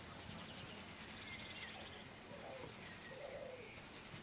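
An insect, likely a bush cricket or grasshopper, chirring in a fast, even run of very high-pitched pulses, about ten a second. Faint bird chirps come and go behind it.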